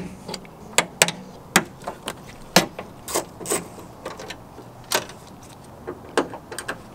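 Socket ratchet clicking as it turns the mounting bolt of a trunk-lid gas strut: a string of separate, sharp clicks, irregularly spaced a second or less apart.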